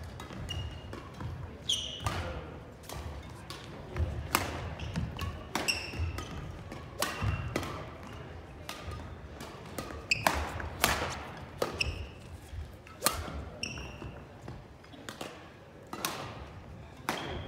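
Badminton rackets striking shuttlecocks in irregular rallies, with sneakers squeaking and footfalls thudding on a wooden gym floor. The hits come from more than one court.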